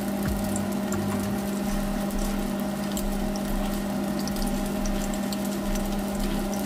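Battered minced-chicken pieces deep-frying in hot oil in a wok: a steady sizzle with many small crackles, over a steady low hum.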